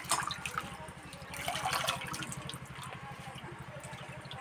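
Hands swishing helencha greens in a steel bowl of water and lifting them out dripping: irregular splashes and drips, loudest at the start and again about a second and a half in.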